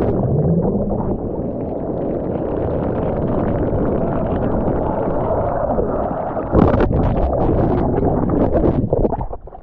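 Muffled, continuous rush of ocean water and wind against a GoPro in its waterproof housing while surfing. There is a louder splash about two-thirds of the way through and choppy splashing near the end.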